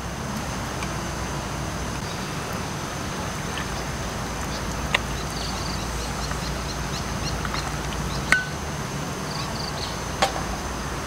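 Evening outdoor ambience: a low steady rumble under a thin, steady high insect drone, with small chirps coming and going. A sharp click right at the start as a beer bottle cap is pried off, and a few faint knocks later on.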